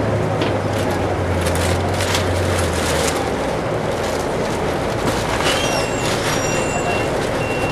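Cabin sound of a Volvo 8400 low-floor city bus under way: the diesel engine's drone under the steady rush of the air-conditioning blower. The engine's low hum drops away about three seconds in, and faint high whistling tones come and go near the end.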